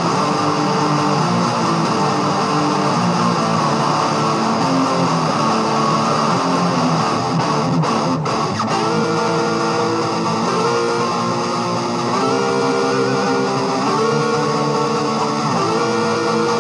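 Guitar playing a song, chords strummed and left to ring, changing every second or two.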